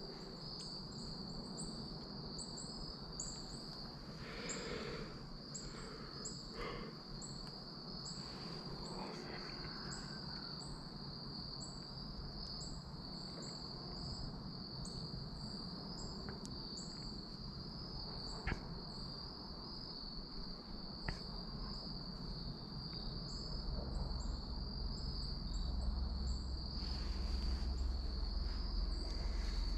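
Steady, high-pitched insect trill, with faint, rapid, evenly spaced chirps above it for the first half. Two sharp ticks come about midway, and a low rumble builds near the end.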